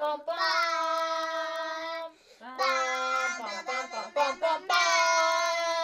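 A child singing wordlessly: a long held note, a short pause, a run of quick short notes, then another long held note near the end.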